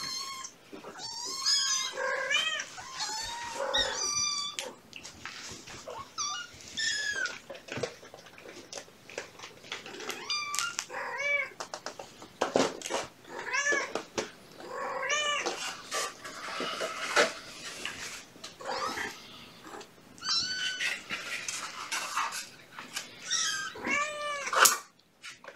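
A litter of five-week-old kittens mewing over and over: many short, high, thin calls, often overlapping, with one loud call near the end. These are the kittens crying to be fed at breakfast time.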